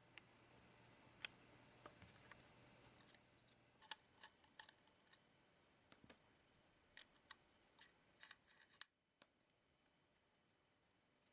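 Faint, irregular small clicks and ticks from hands handling small laptop parts, about a score of sharp taps, thickest in the middle and stopping near the end.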